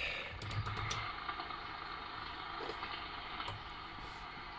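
Cobra 148 GTL-DX CB radio hissing with receiver static from its speaker. A few light clicks come in quick succession about half a second to a second in, and another follows near the middle.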